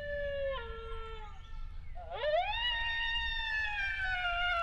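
Long, drawn-out coyote howls. One held howl steps down in pitch and breaks off just over a second in; a second one swoops up about two seconds in, holds, then slides slowly lower.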